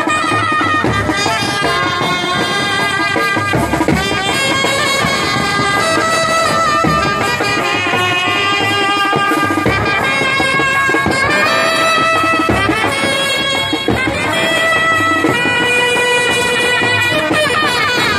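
Indian brass band playing live: trumpets and larger horns carry a melody over steady beats on big bass drums.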